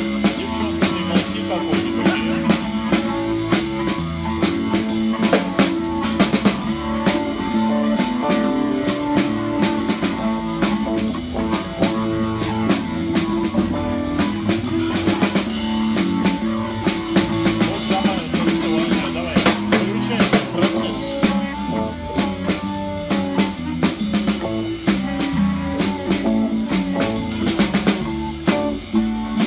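Rock-and-roll band playing live: a drum kit keeping a steady beat with snare rimshots and bass drum, under electric guitars.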